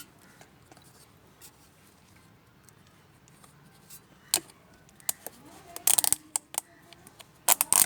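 A scattering of short, sharp metallic clicks and clinks, with two quick clusters in the second half, from tools and small metal parts being handled during a scooter oil change.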